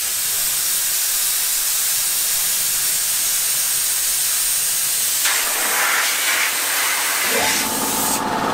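Compressed air hissing steadily out of an air blow gun, bleeding down an air compressor's tank. About seven seconds in, the twin-cylinder compressor starts and runs under the hiss as the tank pressure drops to cut-in, and the blow gun shuts off just before the end.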